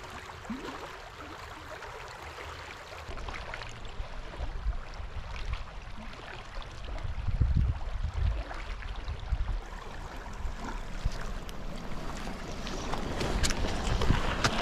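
Steady rush of creek water flowing past a concrete low-water bridge, with gusts of wind buffeting the microphone about halfway through and again near the end.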